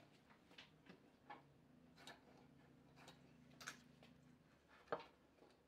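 Near silence with faint, scattered taps and clicks of a steel try square and pen being handled on pine boards, and a slightly sharper knock near the end.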